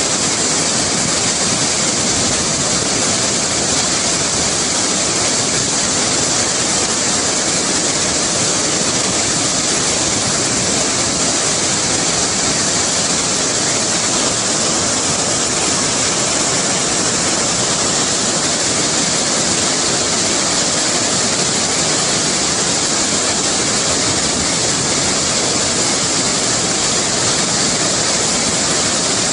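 Waterfall: white water rushing over rock ledges in a steady, unbroken hissing rush.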